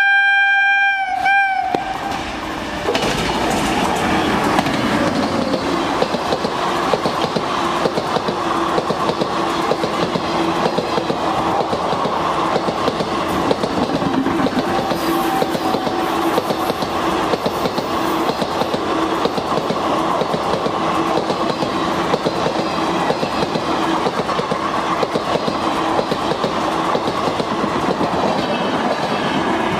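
Electric locomotive horn sounding one steady multi-tone blast that stops about a second and a half in. Then an express passenger train passes at speed, its coach wheels clattering rhythmically over the rail joints with a steady hum underneath.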